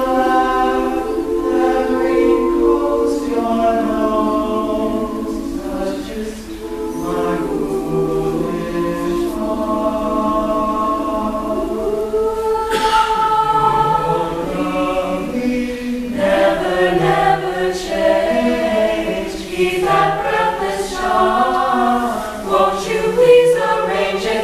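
Mixed high-school choir of young men and women singing a jazz ballad a cappella in close harmony.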